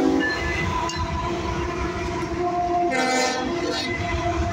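Union Pacific diesel freight locomotives passing close by at a grade crossing, a steady rumble of engines and wheels on the rails. The tail of a long horn blast for the crossing cuts off at the start, and a short horn blast sounds about three seconds in.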